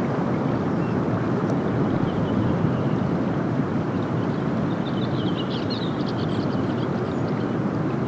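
Steady rushing roar at the Strokkur geyser, with no sudden burst. Faint high-pitched chirping about five to six and a half seconds in.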